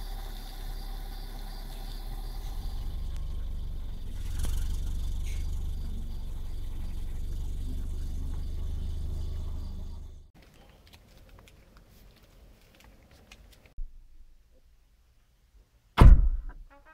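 Car engine idling steadily, then switched off about ten seconds in, followed by a few small clicks and a loud thunk from the car's boot lid near the end.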